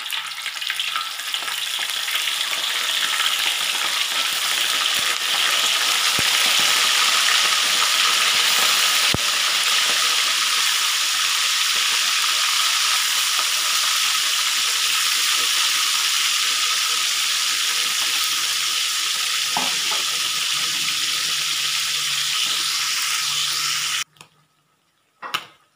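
Pieces of fish frying in hot oil: a steady, loud sizzle that builds over the first couple of seconds as the pieces go in, then cuts off suddenly near the end, leaving a faint click or two.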